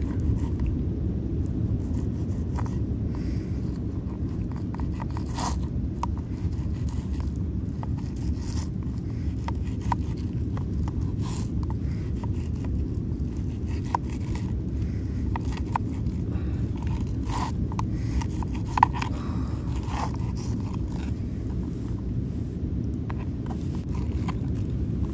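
Fillet knife scraping along a fish fillet on a plastic cutting board as the skin is cut away, heard as scattered short scrapes and clicks over a steady low rumble.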